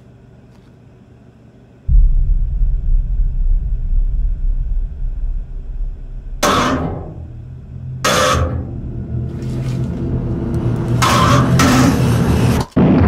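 Horror film sound design: a deep rumbling drone that comes in suddenly about two seconds in, joined by four sudden loud hits from about six seconds in, before cutting out briefly near the end.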